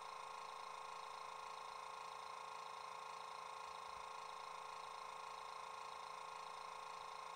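A Bachmann Class 350 electric multiple unit model's DCC sound decoder, running a Legomanbiffo sound file, plays the stationary train's electrical hum through an ultra-flat bass-enhanced speaker. It is a steady, unchanging hum made of several fixed tones, the strongest mid-pitched.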